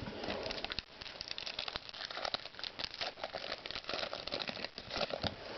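Crinkling and rustling of a trading-card pack wrapper and cards being handled, a quick irregular run of small crackles.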